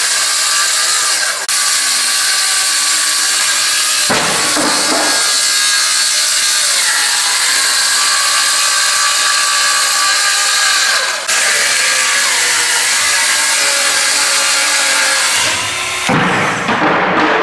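Festool HKC55 18V cordless circular saw cutting through particleboard flooring, its blade and motor whining steadily with the pitch drifting under load. The sound breaks off abruptly a few times between cuts.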